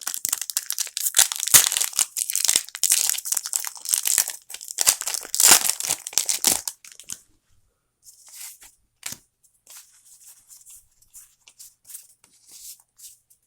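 A Pokémon booster pack's foil wrapper being torn open and crinkled, a dense crackle for about seven seconds. After that come faint rustles of the cards being handled, with one sharp click a little after nine seconds.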